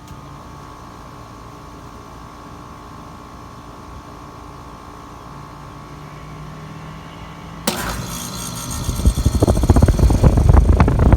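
A 2013 5-ton American Standard heat pump starting up in cooling mode: a faint steady hum with a thin high tone, then a sudden start about seven and a half seconds in, and a second later the unit running loud and low.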